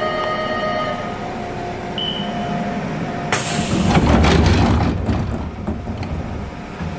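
Kotoden commuter train standing in a station: a steady electrical hum with a short beep, then a sudden hiss of compressed air about three seconds in and a low rumble as the pneumatic sliding doors close.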